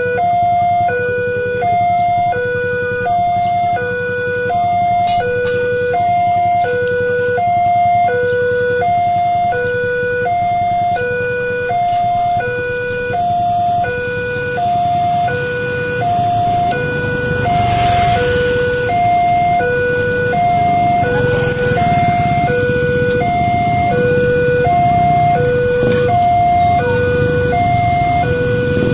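Electronic warning alarm of an Indonesian railway level crossing, sounding while the barriers are down for an oncoming train. It alternates steadily between a low and a high tone. A low rumble grows louder in the second half.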